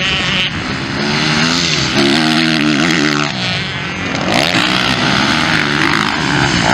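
Motocross dirt-bike engines racing on a track, the pitch rising and falling as riders work the throttle through corners and over jumps.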